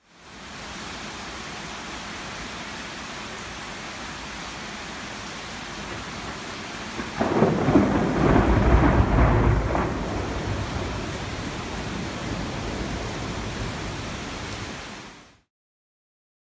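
Steady rain falling during a thunderstorm. About seven seconds in, a sudden loud crack of thunder from a close lightning strike is followed by several seconds of rumble that slowly dies back into the rain.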